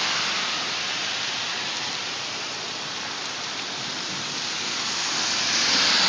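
Heavy rain falling steadily, a dense even hiss that swells a little near the end.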